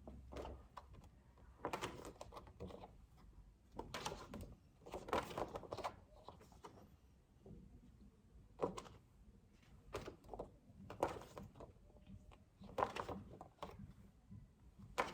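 Faint, scattered clicks, knocks and rustles of handling noise in a quiet small room.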